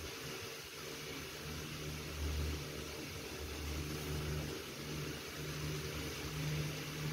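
A low mechanical hum over a steady hiss, swelling and easing several times.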